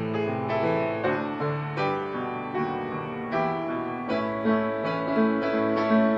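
Solo piano playing a 1920 popular song in a jazz style, melody over struck chords and a moving bass line.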